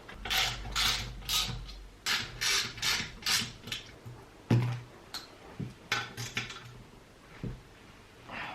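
Ratchet wrench tightening bolts on a turbocharger assembly: a run of quick ratcheting strokes, about two to three a second, then a sharp knock about halfway and a few more strokes.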